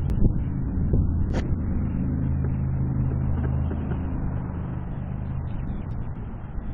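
A vehicle engine running with a steady low hum over a constant low rumble; the hum fades out about a second before the end.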